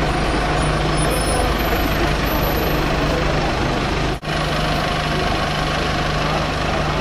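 A vehicle engine idling: a steady low drone, with a brief gap about four seconds in.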